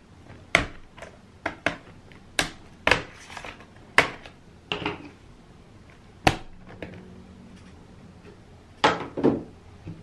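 Plastic retaining clips of an Acer Aspire One Cloudbook 11's bottom case snapping loose as a small flat metal pry tool works along the seam between the case and the palm rest. The sound is a string of sharp clicks and snaps at irregular spacing, roughly one a second.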